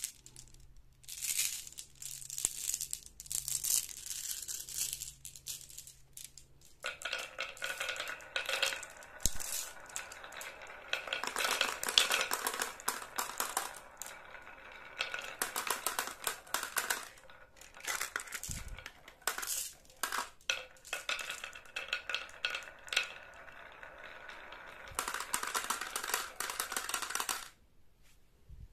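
A handful of marbles clattering and rolling down a wooden wavy-groove marble slope and through a plastic pop tube, a steady busy rattle of clicks that stops shortly before the end.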